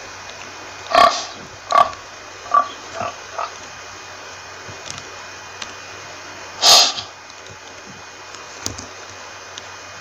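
Domestic pig grunting: a run of five short grunts in the first few seconds, each quieter than the last, then one louder grunt a few seconds later.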